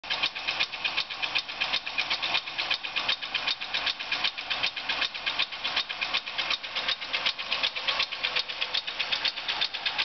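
1997 Chevrolet Monte Carlo's 3.1-litre V6 running with a fast, even ticking from the valvetrain. The owner takes it for lifter noise, believing he left one or two a little loose when reinstalling them after an intake gasket change.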